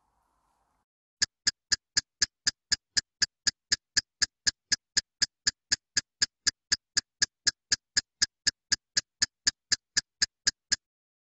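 Ticking clock sound effect of a countdown timer: a sharp, even tick about four times a second, starting about a second in and stopping just before the end. It marks time running out to answer.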